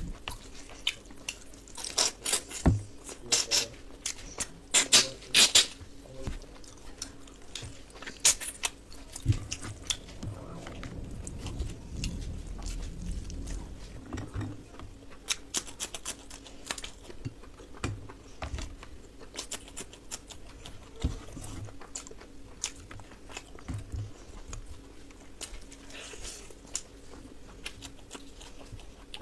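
Close-miked eating with the hands: wet chewing and lip smacks with many sharp clicks, and fingers scraping food around a stainless steel plate.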